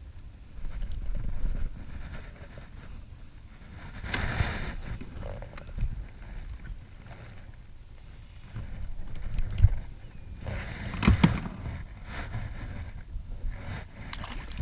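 Wind buffeting the microphone over choppy water, with scattered knocks and clicks as a hook and lure are worked free of a caught fluke by hand; louder handling noise comes about four seconds in and again two-thirds of the way through.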